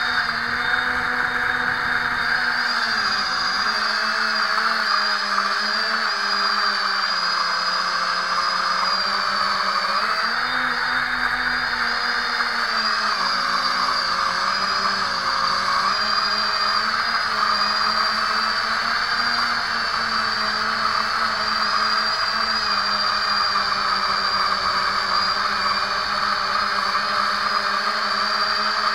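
Small quadcopter's four brushless motors and propellers whining steadily as it flies, the pitch wavering up and down with throttle, heard from the camera on the drone itself along with a rushing air noise.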